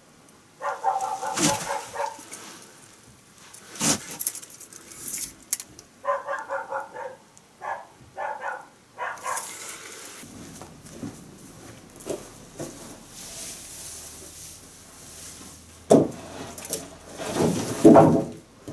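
Short, high-pitched animal whines in three spells, among soft rustling and clicks. Near the end come two loud knocks.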